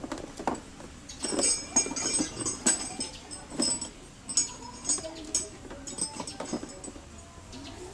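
Irregular metallic clinks and knocks of hand tools and loose metal parts, some with a short bright ring, as bolts are worked off the scooter's rear grab rail.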